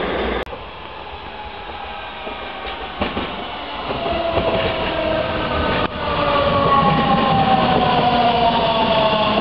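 DB class 426 electric multiple unit approaching and passing close by: wheels rumbling on the rails and an electric motor whine that slowly falls in pitch as the train slows. It grows louder and is loudest from about six seconds in as the cars go past.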